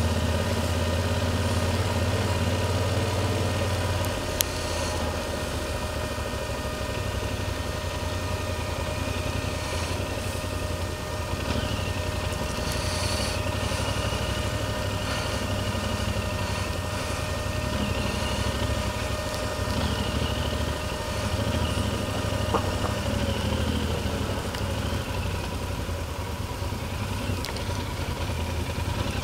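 Yamaha Super Ténéré's parallel-twin engine running steadily at low speed, heard from the bike itself as it rolls over an unpaved road, a little quieter after about four seconds. A single sharp click about four seconds in.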